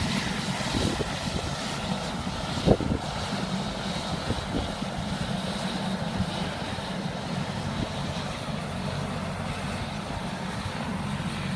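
A steady engine drone, with a single sharp knock a little under three seconds in.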